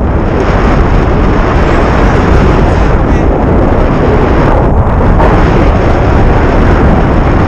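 Strong wind rushing and buffeting over an action camera's microphone during a tandem paragliding flight, loud and continuous.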